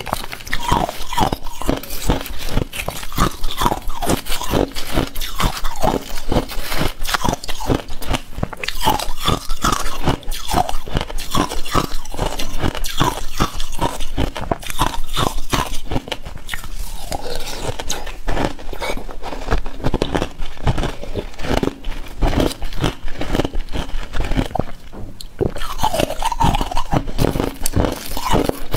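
Shaved ice being crunched and chewed close to a clip-on microphone: a dense, continuous run of crisp crunches.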